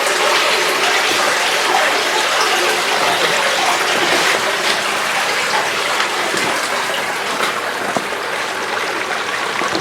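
Spring water steadily gushing and splashing as it flows out of the ground inside a brick-lined spring house.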